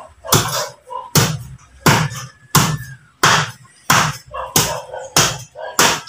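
Meat cleaver chopping into a block of pork on a tiled counter, nine heavy strikes at a steady pace of about one every 0.7 seconds, each a sharp chop with a dull thud beneath.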